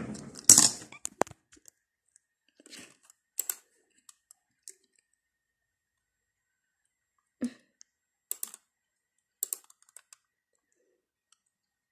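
Scattered short clicks and taps, about eight spread out with quiet between, from a laptop being operated by hand.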